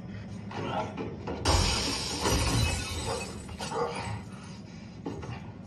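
Glass shattering in a film fight scene: a sudden loud crash about a second and a half in, with the breaking glass carrying on for about a second before it dies away.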